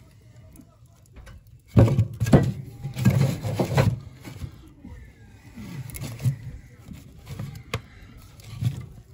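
A split firewood log loaded into a wood-burning stove, scraping and knocking against the metal door frame and the coals in the firebox. It is loudest from about two to four seconds in, followed by quieter knocks as the log settles.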